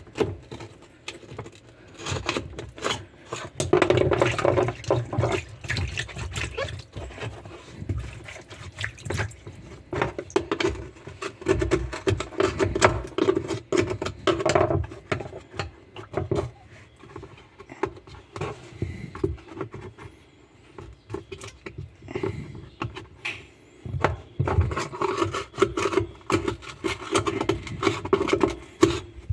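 Washing machine parts being scrubbed and rinsed by hand: water splashing, with irregular scraping, clicks and knocks.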